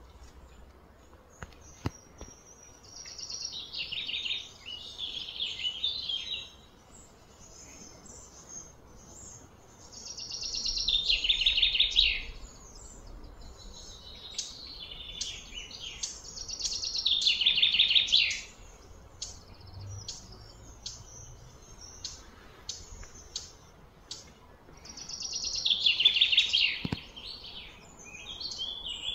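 A bird singing four times in loud bouts of fast repeated high notes; each bout swells over about two seconds and stops suddenly, with short chirps in between.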